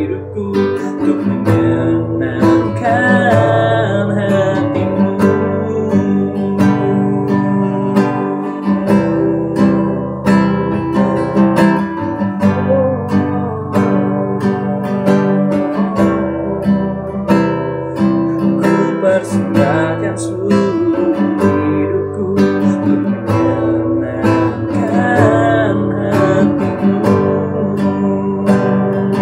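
Acoustic guitar strummed in a steady rhythm, with a man's voice singing along at times.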